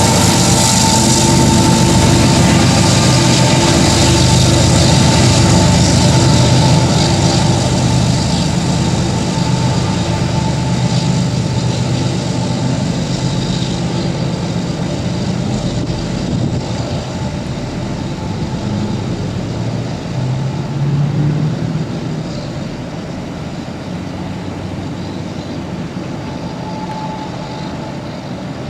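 Freight train rolling past with its distributed-power GE ES44AH diesel locomotive working hard in notch 8. The engine's deep drone is loudest for the first several seconds, then slowly fades as it pulls away, over the steady rumble of the cars and a thin high tone.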